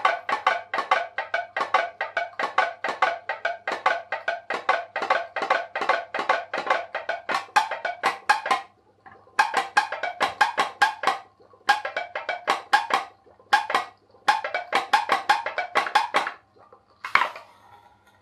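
Tea-light-heated pop-pop boat with a jam-jar-lid diaphragm boiler, popping rapidly at about five pops a second. Past the halfway point the popping breaks into short runs with gaps, ending in one louder sound near the end, as the boiler springs a leak in the owner's view.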